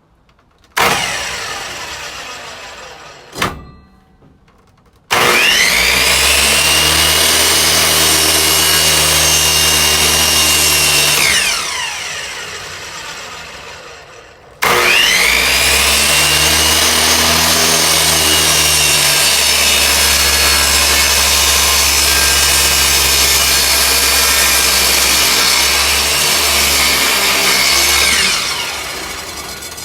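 Delta 10-inch compound miter saw: the motor is switched on for a moment about a second in and winds down. It is then run twice for several seconds each time, the blade whining up to speed, held there, then winding down. These runs are partial-depth cuts lowered into a piece of wood.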